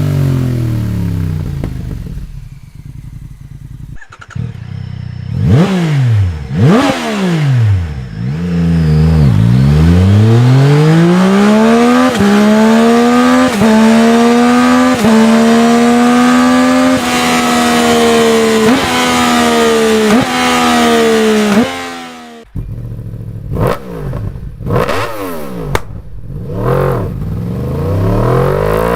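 Yamaha YZF-R sport bike with an Akrapovic full-system exhaust, revving. It gives a few quick throttle blips, then a long pull where the revs climb to a high note and hold with short breaks in the sound, then drop. After a sudden cut, more sharp blips follow.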